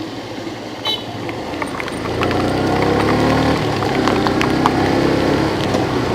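A motor vehicle engine running, growing louder and rising slightly in pitch from about two seconds in, with scattered ticks of raindrops throughout.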